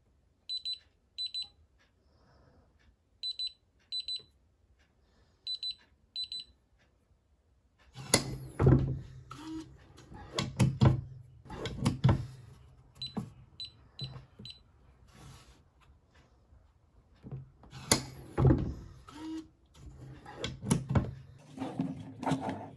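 Electronic beeps from a biometric pistol safe's fingerprint and keypad panel: three pairs of short, high beeps. After that come loud clunks and knocks from the safe being handled and its lid worked, over a low hum, with a few more short beeps in the middle.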